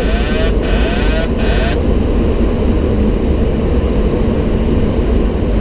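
Steady rush of flight-deck noise in a Boeing 737-800 on approach: airflow and engine drone, even and unchanging. Over the first second and a half a burst of radio static with a voice under it comes through, then cuts off.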